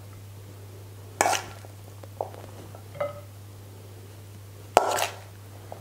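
A metal spoon knocking and clinking against a plate while salad is heaped and shaped on it: two sharp knocks with a short ring, about a second in and near the end, with lighter clinks between.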